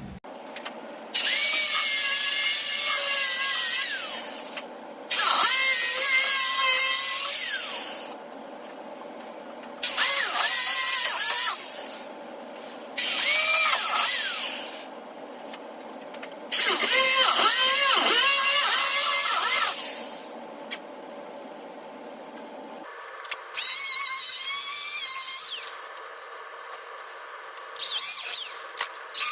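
Handheld power tool run in about seven bursts of one to three seconds, its whine wavering in pitch as it loads and unloads. It is stripping the old windshield butyl and sanding the windshield opening.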